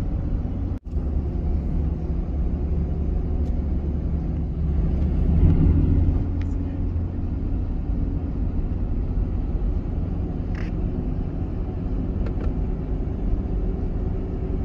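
Road noise inside a moving car: a steady low rumble of engine and tyres on pavement, heard from the cabin. The sound cuts out for an instant about a second in.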